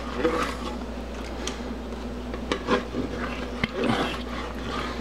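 A spatula stirring thick, creamy sauce in a saucepan: irregular scraping with small knocks against the pan's sides.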